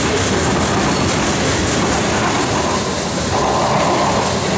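Tank cars of a Norfolk Southern manifest freight train rolling past at close range, their steel wheels running on the rails with a loud, steady rumble.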